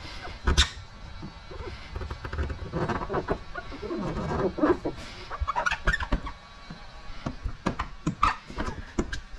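A hand squeegee scraping and squeaking over wet paint protection film on a truck hood in short, irregular strokes, pressing the film's edge down.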